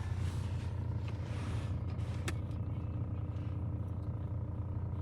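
Steady low hum of a car's engine running, heard from inside the cabin, with a single light click about two seconds in.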